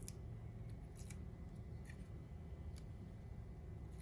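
Small, sharp clicks of metal tweezers, a few scattered across the seconds, as a tiny part is picked at and gripped, over a low steady hum.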